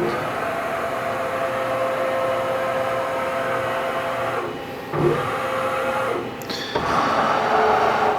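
Southwestern Industries FHM 7 CNC vertical mill's axis drives whirring as the table is moved by the electronic handwheel. The motion comes in three runs with short breaks about four and a half and six and a half seconds in, each run carrying a faint steady whine.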